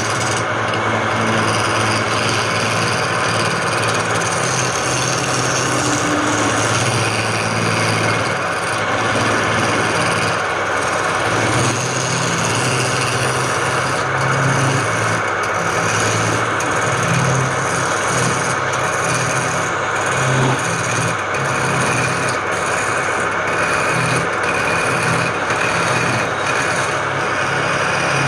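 Wood lathe running while a tool cuts the spinning wood: a steady rasping noise over the motor's low hum.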